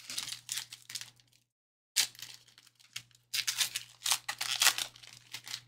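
Trading card pack wrapper being torn open and crinkled by hand, in crisp rustling spells: one at the start, a short burst about two seconds in, and a longer, louder one from about three seconds in.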